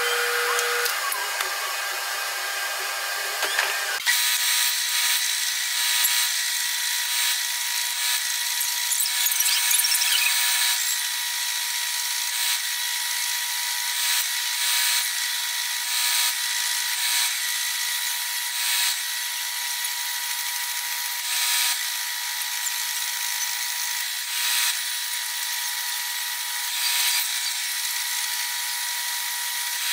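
For about the first four seconds, a drill press spins a wire wheel against a metal part. After an abrupt cut, a bench belt sander runs steadily while a steel plane iron is ground against the moving belt in repeated, uneven passes.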